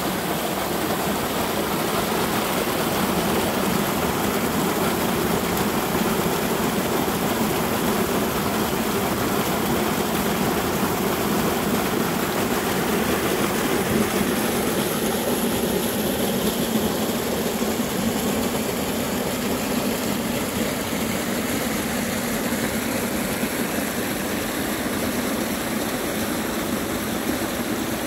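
Rain-swollen, muddy creek rushing over rocks in a small cascade, a steady, even rush of water.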